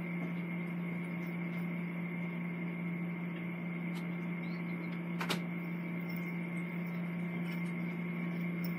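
Steady electrical hum at one low pitch, with a fainter high-pitched whine above it and two faint clicks about four and five seconds in.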